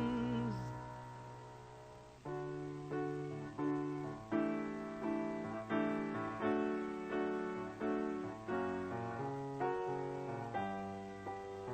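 Music: a rock band's last held note and chord die away, then a solo piano plays a steady run of chords from about two seconds in.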